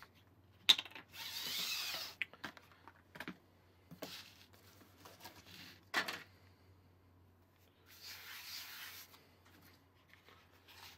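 Flour being handled and sprinkled onto a flour board: a sharp click, then two brief rustling hisses about a second each, with a few small knocks between them.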